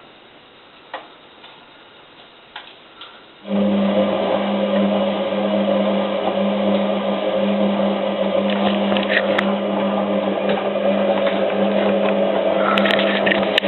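Hotpoint 9534A washing machine's drum motor starting suddenly about three and a half seconds in and running with a steady hum as it turns the drum, during the heating stage of a cotton boil wash.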